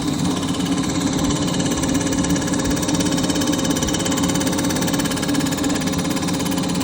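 Machine tool running steadily as it takes a light finishing skim cut across the mating face of a Kawasaki Ultra 300LX jet ski crankcase.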